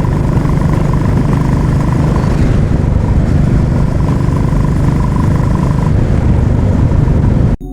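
Royal Enfield Classic 350's single-cylinder engine running steadily while riding on the road, under a loud rush of wind and road noise. It cuts off abruptly just before the end.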